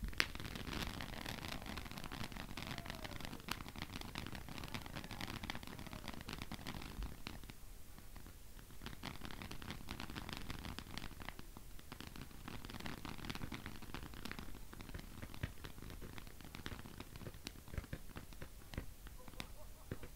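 Firework crackling and hissing in two long spells, with a brief lull about seven seconds in, after a single sharp crack at the very start.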